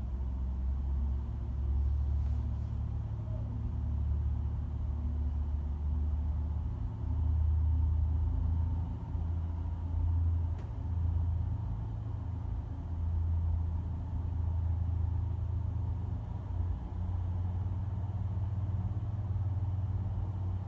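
Low diesel rumble of locomotive 408 and ABH railcar No. 204 pulling out of the station, swelling and easing as the train moves off.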